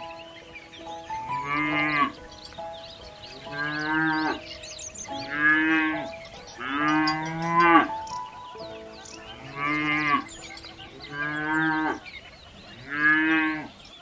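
Cows mooing: about seven long moos, each lasting about a second, over faint background music.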